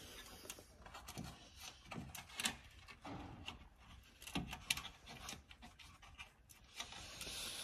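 Light clips being worked loose by hand inside a light opening in a truck's cab panel: faint, irregular clicks and rubbing, with a couple of sharper knocks around the middle.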